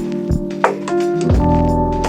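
Background music: a keyboard-led track with piano or organ chords over a steady beat.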